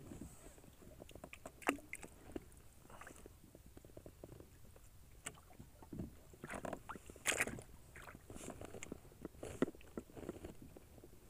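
Light knocks and clicks aboard a small fishing boat, scattered and irregular, with a few sharper ones about two seconds in, around seven seconds in and near the end.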